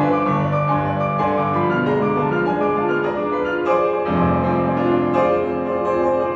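Steinway & Sons grand piano played solo: quick successions of notes in the middle and upper range over held bass notes, with a new, heavier bass chord coming in about four seconds in.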